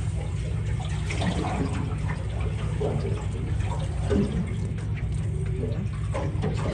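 Water sloshing and lapping against the hull of a small boat on choppy water, over a steady low rumble of wind on the microphone, with a few faint clicks.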